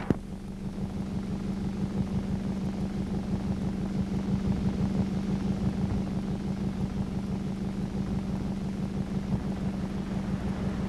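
A jet boat's engine running with a steady low drone, over the rush of whitewater, after a single click at the start.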